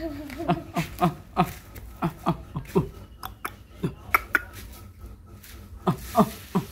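Puppy barking in a quick string of short, high yaps, each dropping in pitch. The barking stops for a second or so and starts again near the end.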